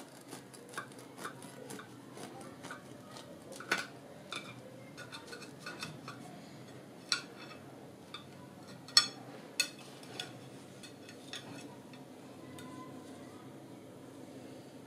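Serrated bread knife cutting through a soft round bread on a plate, with repeated clicks and taps of the blade against the plate. The loudest knocks come about nine seconds in, and the last few seconds are quieter.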